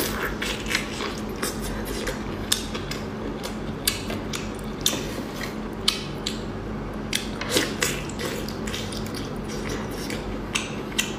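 Close-up eating sounds of a giant prawn in sauce: repeated sharp cracks and crunches as the shell is bitten and pulled apart, with wet, sticky chewing in between.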